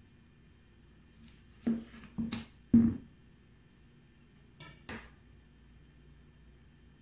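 A chef's knife finishes splitting a chayote lengthwise, and the knife and the two halves come down on the cutting board with three sharp knocks, the last the loudest. Two lighter taps follow a couple of seconds later as the halves are handled on the board.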